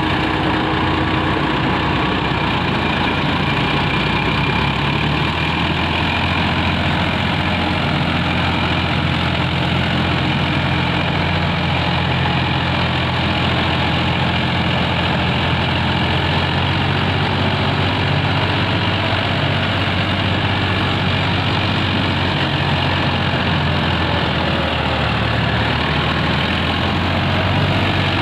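Diesel engines of a combine harvester and a Sonalika tractor running steadily at an even speed while the harvester tows the stuck tractor.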